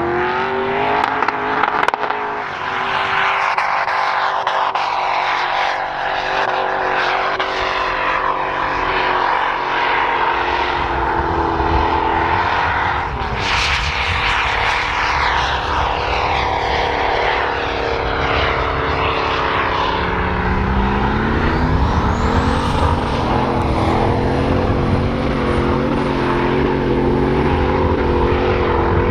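Swapped V8 engines of off-road 4x4s running hard at high revs under load, the pitch held fairly steady, then rising again about twenty seconds in as an engine revs up. A faint high whistle rises and holds in the last third.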